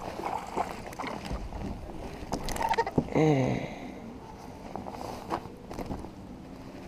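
A small hooked largemouth bass splashing at the surface beside a fishing kayak as it is reeled in and swung aboard, with irregular knocks and clicks of rod and gear against the hull. A short vocal exclamation about three seconds in is the loudest moment.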